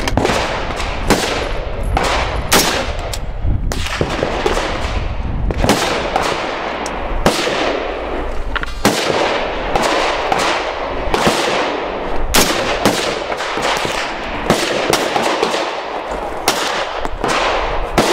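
Gunfire on a busy shooting range: a stream of sharp shots from several guns, irregularly spaced and at times several within a second, each followed by a short echo.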